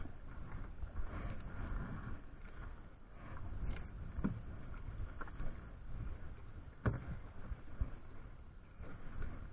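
Small boat in a rough sea in strong wind: a steady low rush of wind and water, with a few sharp knocks along the way.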